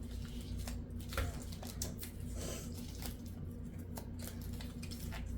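Small handling noises of craft materials on a tabletop: scattered light clicks and brief rustles, over a steady low hum.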